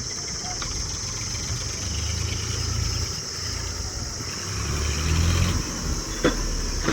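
Heavy machine's engine running with a low rumble that swells about two seconds in and again near five seconds, as if under load or being revved. A sharp knock comes about six seconds in.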